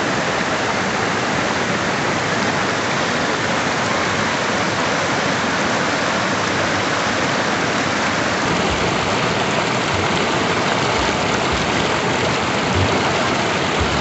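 Water rushing steadily over a low concrete river weir and churning in the shallow pool below. A few short low thuds come in the second half.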